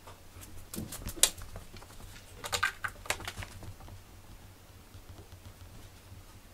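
Light clicks and rustles in two short clusters, about a second in and again between two and a half and three seconds in.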